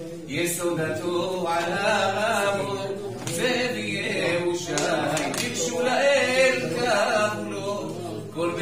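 A man singing in Hebrew, solo and unaccompanied, in long phrases with wavering, ornamented pitch and short breaths between them.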